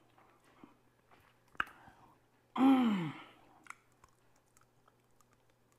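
A man's voiced sigh about two and a half seconds in, falling in pitch, amid faint chewing and small mouth clicks.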